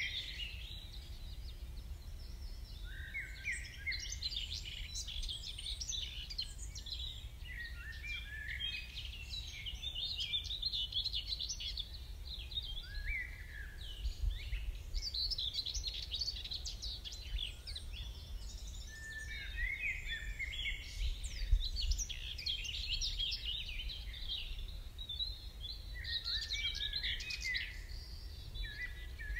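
Dawn chorus: birds singing in high phrases of about two seconds, one after another every few seconds, over a steady low rumble.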